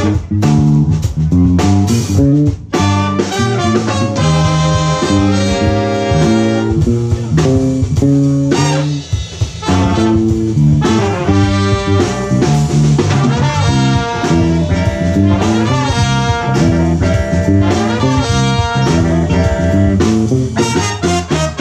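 A live band with a saxophone section, trombone and drum kit playing an upbeat jazz-funk tune, the horns carrying the melody over the drums.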